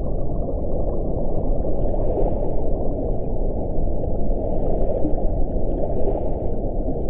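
Underwater whale recording: a dense, deep rumble of ocean noise with whale vocalizations, and faint hissing swells about every second or two.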